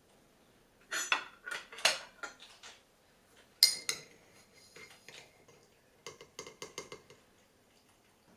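Kitchen utensils and dishes clinking and knocking. There is a cluster of knocks about a second in, one sharp ringing clink about halfway through, and a quick run of light clicks near the end.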